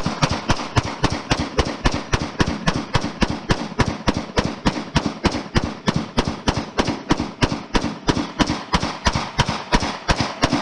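Glock 17 Gen 4 9 mm pistol firing a 40-round magazine in rapid semi-automatic fire, an even string of sharp shots at about four a second. It cycles through without a pause or stoppage: the gun runs the whole magazine with no malfunction.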